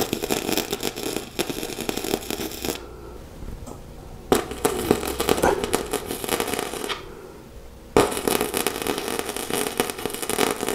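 Arc welding on a steel frame: three welds of about three seconds each, with short pauses between them.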